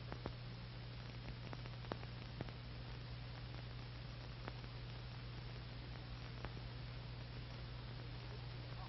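Steady low hum and hiss of an old film soundtrack, with a few scattered faint clicks and pops.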